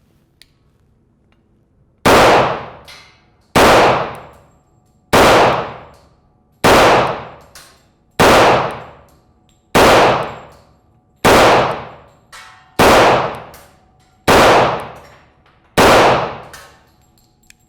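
Ten unsuppressed shots from an HK45 pistol firing .45 ACP 230-grain ammunition, evenly spaced about a second and a half apart, each a sharp crack followed by a decaying echo.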